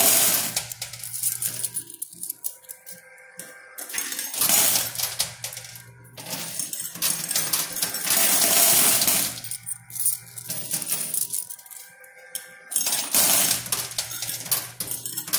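Quarters clinking and clattering in a coin pusher machine. The clatter comes in loud spells about every four seconds, with single coin clicks and a faint machine hum between them.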